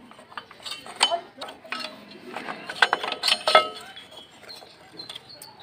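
Metal clinks, clicks and knocks as a rear drum brake shoe and its springs are worked off the backing plate by hand, with a cluster of louder, briefly ringing clanks in the middle.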